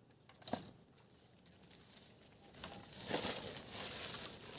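A sharp click about half a second in, then rustling and crackling that grows louder from about halfway through.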